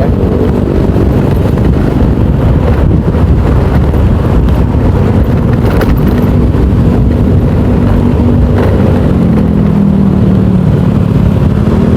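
Motorcycle riding along the road, its engine hum mixed with a heavy rumble of wind and road noise on the rider's microphone. The engine note holds steady, drops lower for a couple of seconds near the end, then rises again.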